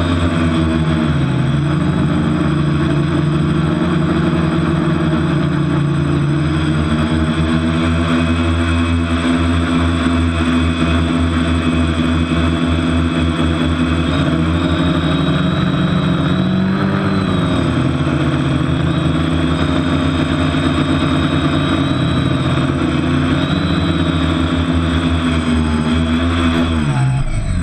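TBS Discovery quadcopter's electric motors and propellers whining, heard close up from on board, the pitch rising and falling with the throttle; near the end the pitch slides down as the motors throttle off for landing. It is being flown on a damaged propeller.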